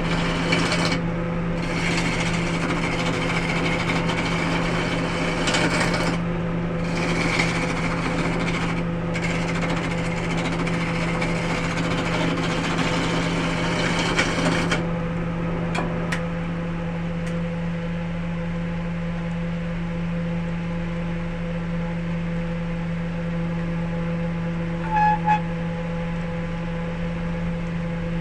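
Wood lathe motor running with a steady hum. For about the first fifteen seconds a turning tool cuts the spinning wood with a dense scraping noise, then the cutting stops and only the motor hum remains. Near the end there are two short high tones.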